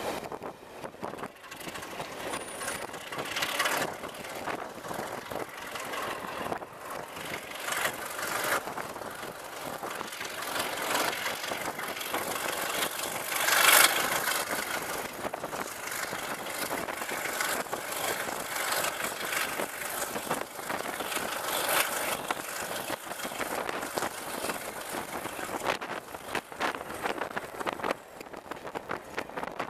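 Heritage passenger train running, heard from an open carriage window: a steady rush of wind and wheel-on-rail noise with frequent short clicks, and a louder surge about halfway through.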